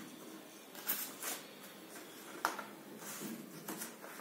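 Printed paper pictures being handled against a chart board: a few short rustles and light taps as one picture is pressed onto the board and another is pulled off.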